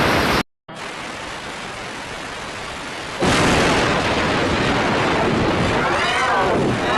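Thunderstorm sound effect: a steady hiss of rain. About three seconds in, a sudden loud crash of thunder sets in and keeps rumbling.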